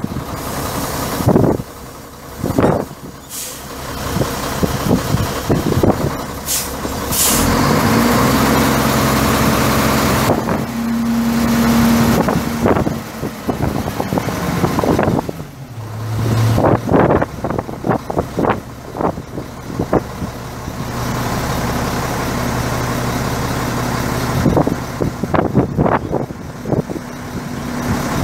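Mack E7 12-litre inline-six turbo diesel of a Mack CV713 dump truck running, its engine note shifting up and down several times, with rattles and knocks throughout. Two short air hisses come about six and seven seconds in.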